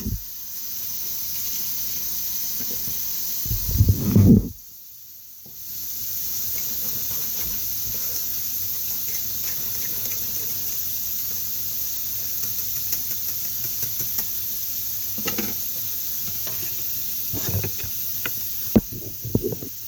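Food sizzling steadily in a frying pan, with a couple of louder bumps about four seconds in, a brief drop-out just after, and more bumps near the end.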